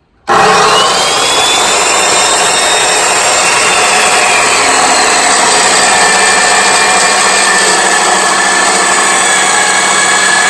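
A power tool starts abruptly and runs steadily at full speed, a loud harsh noise with a high whine over it.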